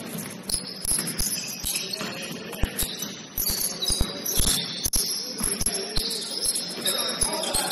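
Basketball sneakers squeaking on a hardwood gym floor during play: many short, high squeaks of shifting pitch, mixed with scattered low thuds of the ball and footfalls.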